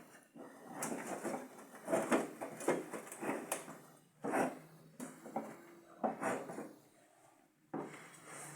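Ugali being stirred in a pot with a cooking stick: repeated uneven scraping strokes of the stiff maize-flour dough against the pot, with a short pause near the end before one last stroke.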